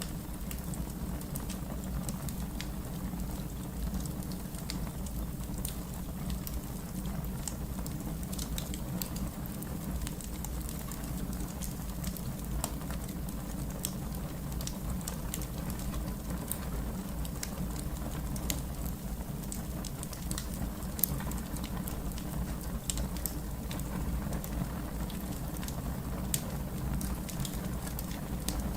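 Fire crackling: a steady low rumble of the flames with scattered sharp pops and snaps. One louder pop comes about three-quarters of the way through.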